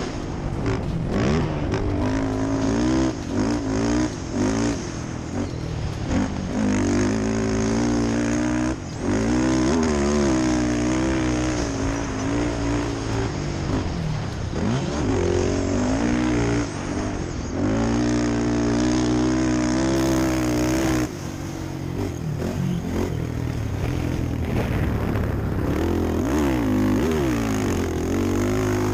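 Quad (ATV) engine revving up and backing off over and over as it is ridden, the pitch climbing on each pull and dropping when the throttle is released.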